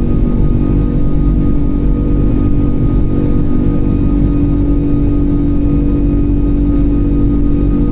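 Cabin noise of an Airbus A340-600's Rolls-Royce Trent 500 engines: a loud, steady drone and rush with several constant hum tones that hold their pitch throughout.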